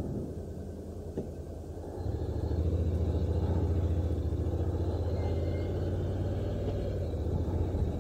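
Honda NC750X motorcycle's parallel-twin engine running at low road speed, a steady low rumble that gets louder about two seconds in.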